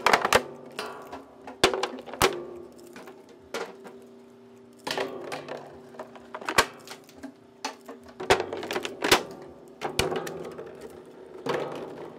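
Homemade plastic shredder running, its steel blades biting into plastic drink bottles: irregular sharp cracks and snaps of the plastic, several a second in places, over a steady hum of the motor and gearbox.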